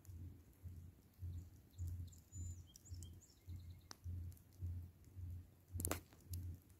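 Faint, distant drumming: a steady low beat, a little under two beats a second. A few faint bird chirps come in a couple of seconds in, and a campfire pops sharply once near the end.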